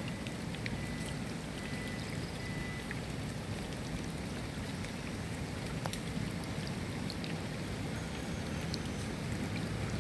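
Steady rain falling, with scattered sharp ticks of individual drops striking a surface.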